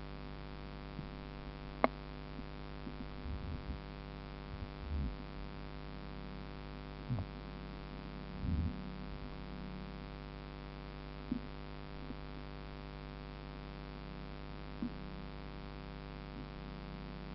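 Steady electrical hum, with a sharp click about two seconds in, a few fainter clicks later, and several short low thuds.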